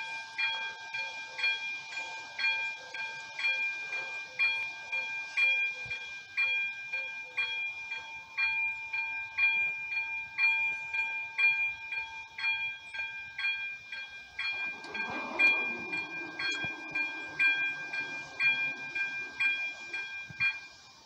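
Level-crossing warning bell ringing about twice a second over a steady tone. About two-thirds of the way through, a lower mechanical sound runs for a few seconds as the barrier arms lower.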